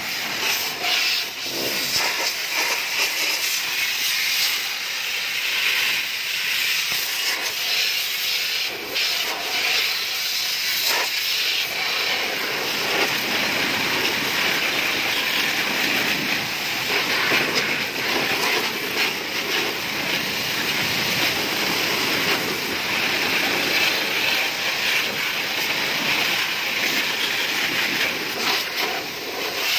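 High-pressure washer jet hissing as it sprays a motorcycle's wheel, exhaust and engine, rinsing off the cleaner. The hiss is steady but wavers as the jet moves across the bike, and it grows fuller about halfway through.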